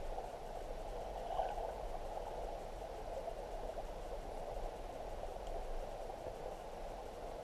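Steady, muffled rush of flowing river water heard underwater through a GoPro Hero 3's waterproof housing.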